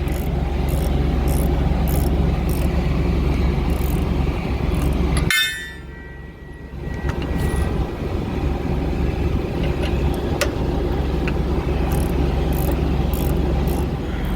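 Farm tractor engine running steadily. About five seconds in, the sound drops away suddenly, then returns after a second or two and runs on steadily.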